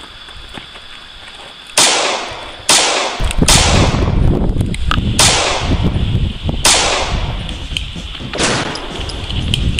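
Gunshot sound effects: about six single sharp shots, spaced roughly one to one and a half seconds apart, each with a ringing tail. A low rumble comes in under them about three seconds in.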